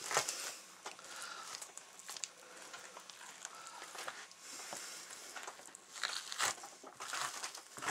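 Knife scraping fat and flesh from a walleye skin laid on newspaper, with faint crinkling of the paper: soft, irregular strokes, with a couple of sharper scrapes near the end.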